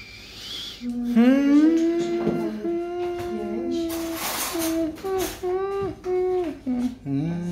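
A person humming a wordless tune, mostly long held notes that slide between pitches. A short hissing rush cuts across it about four seconds in.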